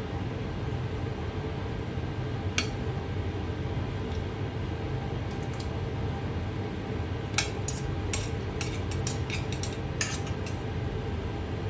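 Metal tongs and mussel shells clinking against a ceramic serving bowl and a metal pan as mussels are set around the pasta. There is one clink about two and a half seconds in, then a quick run of clicks and clinks in the second half, over a steady low hum.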